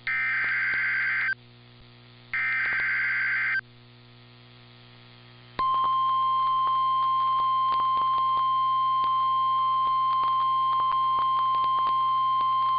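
NOAA Weather Radio Emergency Alert System (SAME) header: two short bursts of buzzy digital data tones, each about a second long and a second apart, encoding a severe thunderstorm warning. After a pause of about two seconds comes the steady 1050 Hz warning alarm tone, the signal that a warning message is about to be read, with a light crackle of radio static.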